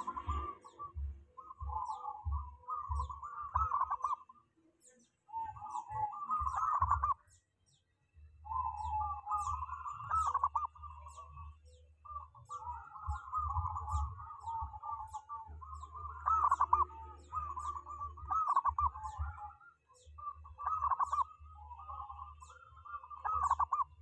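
Zebra dove (perkutut) cooing: a run of rolling, trilled phrases a second or two long with short pauses between them. A faint high chirp repeats about twice a second underneath.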